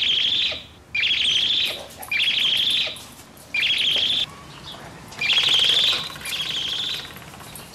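A tribble toy's high, trilling chirps: six short warbles, each under a second, all at the same pitch.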